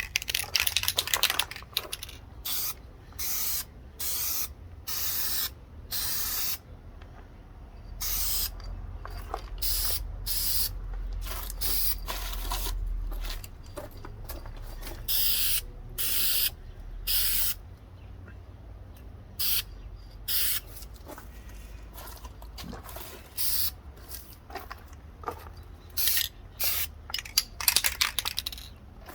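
Aerosol spray-paint can hissing in many short bursts, a few of them longer, as a coat of black paint goes onto a model body shell.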